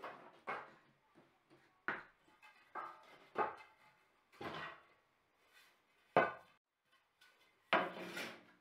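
Wooden boards and strips knocking and clattering against each other and the wall as they are picked out and handled, about seven separate knocks, the sharpest about six seconds in and a longer clatter near the end.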